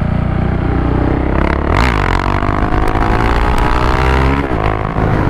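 Single-cylinder engine of a 2015 KTM Duke 690 under way, with wind noise on the helmet microphone. The engine runs steadily for about two seconds, dips, then rises in pitch as it accelerates for two seconds, and falls back briefly near the end.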